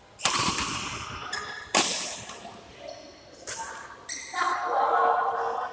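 Badminton rackets striking a shuttlecock, echoing in a sports hall: two hard hits about a second and a half apart, then a few lighter knocks. Near the end a man's voice calls out.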